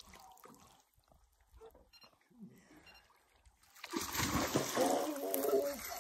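A large northern pike thrashing and splashing at the surface as it is scooped into a landing net, the splashing starting suddenly about four seconds in after a quieter stretch.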